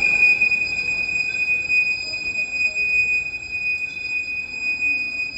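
Train wheels squealing as the locomotive-hauled train pulls slowly away: one steady, high-pitched squeal.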